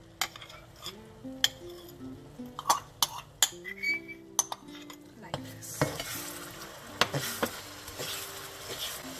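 A metal spoon clinks and scrapes against a glass jar as sweetened condensed milk is scooped out. A little past halfway, a hot pan of melted butter and brown sugar starts sizzling steadily as the milk goes in. Background music plays underneath.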